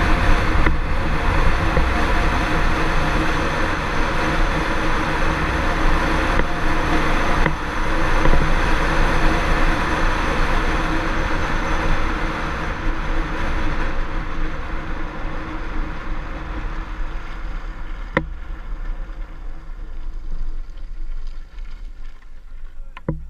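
Racing Bobby-Car ride-on toy rolling fast down an asphalt road, its wheels giving a steady rumbling, rattling noise mixed with wind on the microphone. The noise dies away over the last third as it slows to a stop, with a sharp knock about two-thirds in and a few more right at the end.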